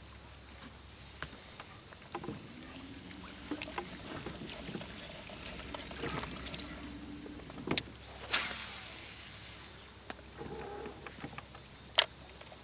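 Baitcasting fishing reel and rod in use. There are small clicks and a faint low hum during the retrieve, then a cast about eight seconds in, with a sudden hissing rush of line leaving the spool that fades over a second or so. One sharp click comes near the end.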